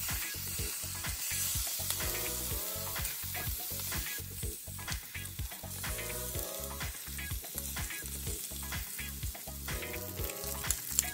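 Salmon fillets sizzling as they fry in oil in a frying pan, with a couple of sharp clicks near the end.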